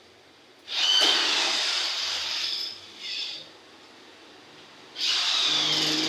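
Battery-powered electric rivet gun running in two pulls of about two seconds each, with a short burst between them, its motor whine drooping slightly in pitch under load as it draws the rivets.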